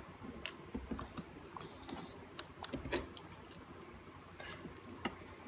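Scattered light clicks and taps, a few a second at most, from handling the reassembled plastic instrument cluster housing and its small screws.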